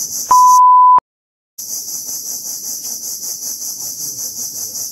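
A loud, high-pitched insect chorus that pulses about five times a second. It is broken near the start by a loud steady electronic beep, about two-thirds of a second long, and then half a second of dead silence.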